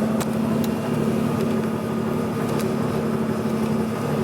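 Boring machine running steadily with a constant hum and a few faint sharp ticks, likely the bar cutting the hitch bores out for bushings.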